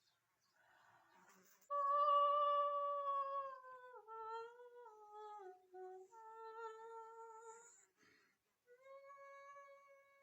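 A woman's voice singing a wordless, siren-like vocalise. It starts about two seconds in after a short breath, with long held notes that slide downward in steps. After a brief pause near the end it goes into a steady held note.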